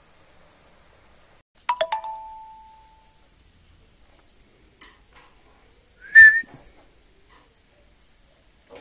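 A steel spatula clinks three times in quick succession against an aluminium pot, each clink ringing briefly. A few seconds later comes a single short, high-pitched animal call, the loudest sound.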